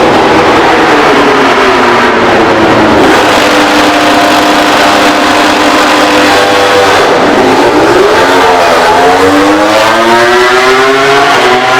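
MotoGP race bike engine at high revs. Its pitch falls, holds level for about three seconds, dips sharply about seven seconds in, then climbs steadily as the bike accelerates.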